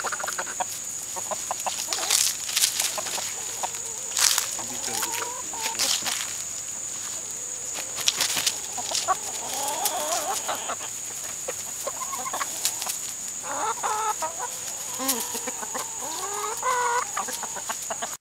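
Backyard chickens clucking in short, bending calls, with a busier run of clucks near the end. Sharp clicks are scattered through, the loudest moments, and a steady high thin tone runs underneath.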